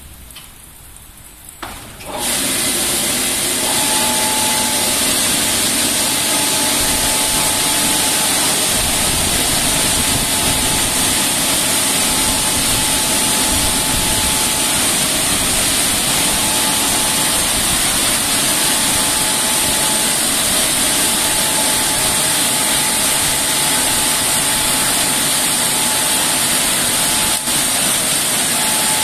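Automatic car wash gantry's drying blowers starting about two seconds in and then running steadily, a loud rushing of air with a thin steady whine, blowing the water off the car at the end of the wash.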